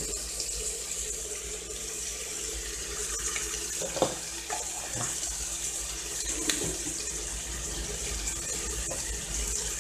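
Ribs frying in oil in an open pressure cooker: a steady sizzle, with a few faint taps around the middle.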